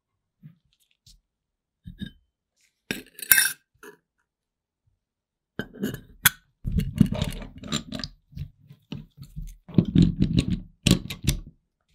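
Steel parts clinking and knocking as they are handled on a wooden workbench: a machined steel ring is set between two flat steel plates and a pair of screw clamps is fitted over them. A few sharp clinks come a few seconds in, then a busy run of knocks and rattles from about halfway on.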